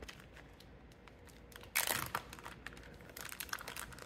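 Zip-top plastic freezer bag of ground beef crinkling as it is handled and squeezed, with a sudden loud rustle about two seconds in, then lighter, scattered crinkles.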